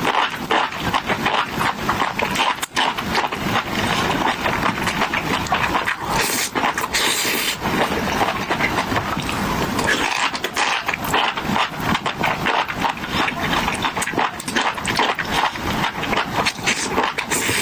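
Close-miked eating of spicy food: continuous wet chewing and slurping with many small smacking clicks.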